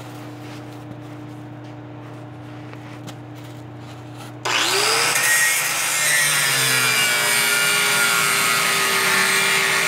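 Angle grinder spinning up suddenly about halfway through with a rising whine, then cutting steel with a loud harsh hiss, its pitch settling a little lower under load. It is cutting through the rusted exhaust and its hanger mounts. Before it starts there is only a steady low hum.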